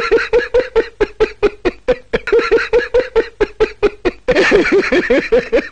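A man laughing loudly in quick, even 'ha-ha' pulses, about five a second; about four seconds in the laughter turns denser and more wavering.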